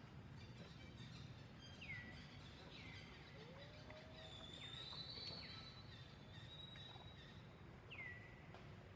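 Faint outdoor ambience with a few short high animal calls, each dropping in pitch, a lower call that rises in pitch near the middle, and a thin held high note just after it.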